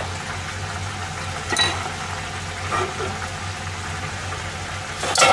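Cookware and utensils being handled on an induction cooktop: a few light clicks, then a louder clatter near the end, over a steady kitchen hiss and low hum.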